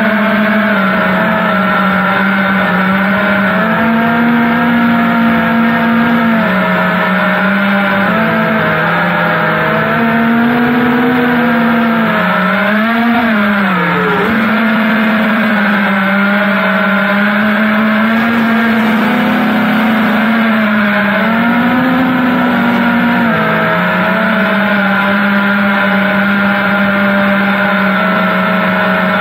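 FPV quadcopter's brushless motors and propellers whining, the pitch stepping up and down as the throttle changes, with a quick drop and surge about halfway through.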